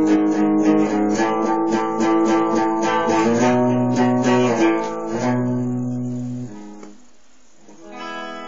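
Guitar strummed in a steady rhythm for about three seconds, then two held chords that ring out and die away; a last chord is struck near the end and left ringing.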